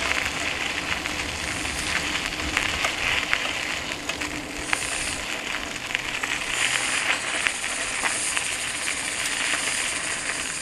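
Bicycle rolling over a gravel dirt road: a steady rushing hiss from the tyres and passing air, dotted with many small crunching clicks and rattles.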